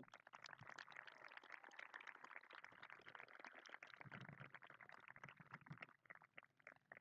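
Faint applause from an audience: many scattered hand claps, thinning out near the end.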